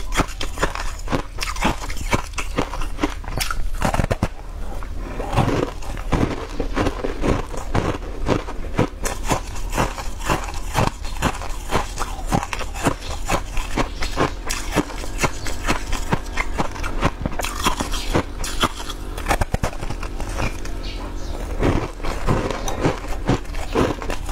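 Close-miked eating: biting into and chewing a green-coated sweet ball, heard as many quick wet clicks and crunches from the mouth.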